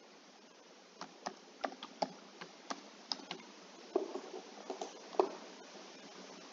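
Computer keyboard keys clicking in an irregular run as a password is typed, ending with a louder single click about five seconds in.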